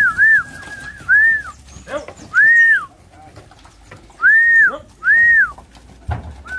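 A person whistling to drive cattle: a loose series of about six short, clear whistles, each rising and falling in pitch over about half a second, with one flatter, longer whistle near the start.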